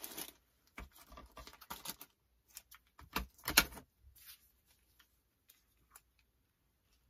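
Hands handling paper gift tags and ribbon scraps on a cutting mat: scattered rustles and light taps, the loudest about three and a half seconds in.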